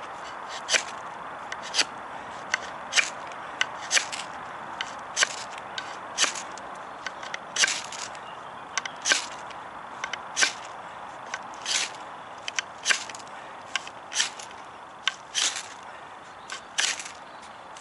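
A ferrocerium rod is scraped down the spine of a fixed-blade knife again and again, roughly one to two sharp rasping strikes a second, throwing sparks onto damp tinder to light a fire.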